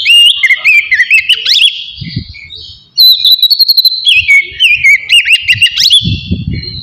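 Oriental magpie-robin (kacer) singing in loud, rapidly varied whistled phrases with sharp slurred notes and clicks. The song comes in two bursts, with a brief pause about two seconds in. A low rumble sounds near the end.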